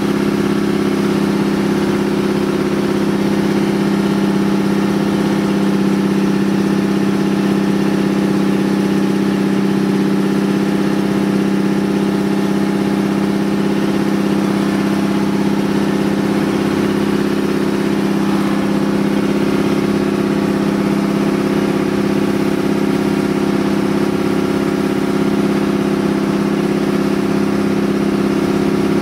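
Outrigger boat's engine running at a steady speed, heard from on board as an even, unchanging hum.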